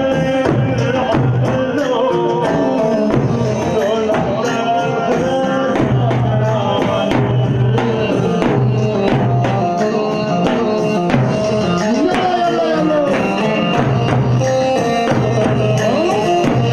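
Loud Arabic wedding music with hand-drum and tambourine percussion keeping a steady rhythm under a gliding melody.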